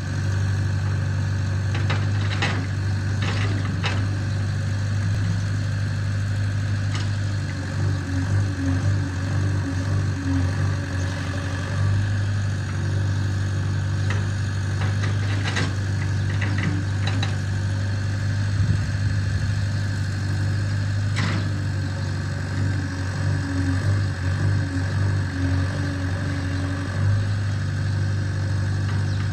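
JCB backhoe loader's diesel engine running steadily with a low hum, swelling a little now and then under load. A few short, sharp knocks come through at times.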